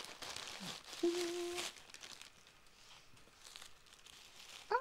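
A plastic mailer bag and tissue paper crinkling as a parcel is opened and its wrapped contents are pulled out by hand. About a second in there is a short held note, and a rising note comes at the very end.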